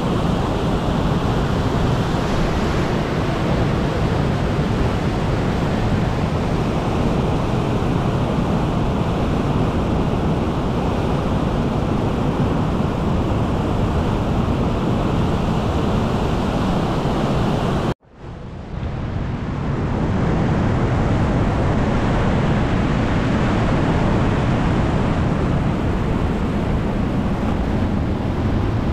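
River rapids rushing over rocks: a loud, steady wash of water noise. It cuts out abruptly about two-thirds of the way through and fades back up over a couple of seconds.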